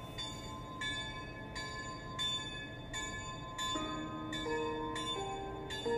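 Bell tones struck evenly, about three every two seconds, each ringing on, with a slow melody of held lower notes joining in about four seconds in.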